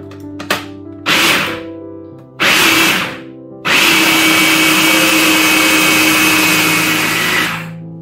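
Hamilton Beach 10-cup food processor motor grinding yellow lentils. It gives two short pulses, then runs steadily for about four seconds before stopping near the end.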